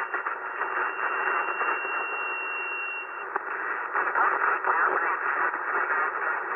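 HF transceiver (Yaesu FT-891) receiving 20-metre single-sideband: a steady hiss of band static with a thin, steady high whistle from a station tuning up on the frequency, which stops about halfway through. Weak, garbled signals sit under the noise in the second half.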